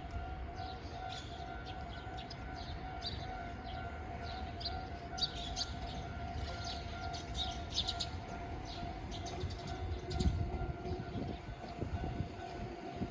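Japanese level-crossing warning alarm ringing: a steady, repeating electronic tone at one pitch. Small birds chirp over it, and a low rumble swells about ten seconds in.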